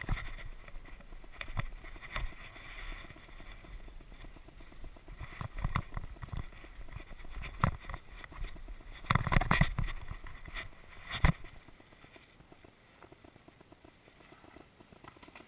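Trek Rail 9.8 electric mountain bike rolling over rough, rocky dirt singletrack: tyre crunch, with knocks and rattles as the bike jolts over bumps. A cluster of loud hits comes about nine seconds in and one sharp knock near eleven seconds, after which it runs quieter.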